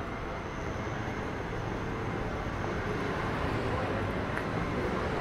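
Steady road traffic noise along a city street, slowly growing louder.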